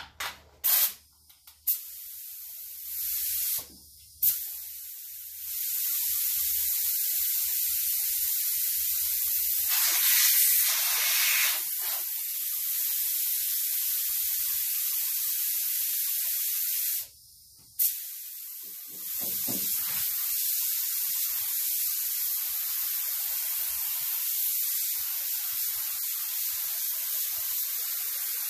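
Gravity-feed paint spray gun hissing with compressed air as it lays a fine mist of colour: a few short blips of the trigger at first, then long steady passes, broken once by a brief stop about two-thirds of the way through.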